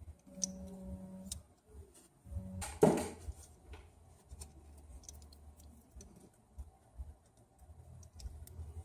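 Small clicks and taps of hand tools and parts being handled during an iPhone 6 Plus screen replacement, with one louder knock about three seconds in and a brief low hum near the start.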